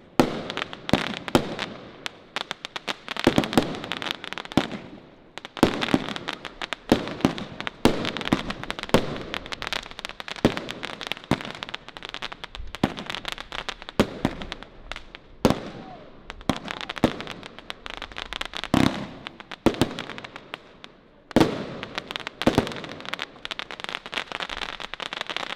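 Funke consumer firework cake, four 25-shot cakes chained into a 100-shot sequence, firing shot after shot into the air: a dense run of rapid bangs and crackles. It comes in waves, with short lulls three times.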